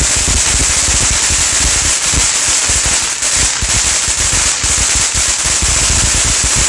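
Ground fountain firework spraying sparks, with a loud, steady, rapid crackling over a bright hiss.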